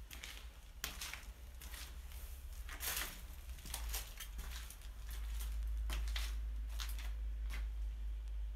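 Footsteps crunching irregularly over gritty rubble and dry leaves on a concrete floor, with a low rumble that swells about halfway through.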